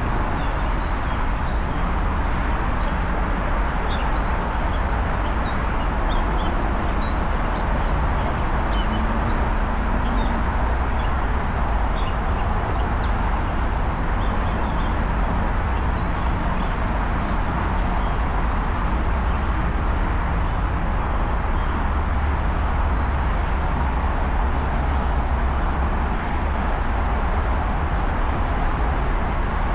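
Steady roar of distant road traffic, with small birds chirping in short high calls, mostly in the first half.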